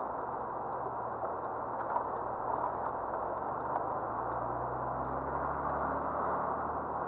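Inside the cabin of a 1985 BMW E23 735i: its straight-six engine and tyre noise as the car drives slowly down a village street. The engine note rises a little about two thirds of the way through.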